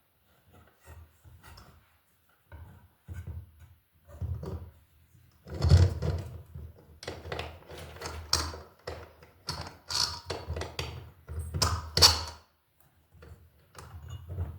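Irregular clunks, knocks and scraping as a brass light fixture is handled and fitted onto an electrical box, with the loudest knocks about six and twelve seconds in.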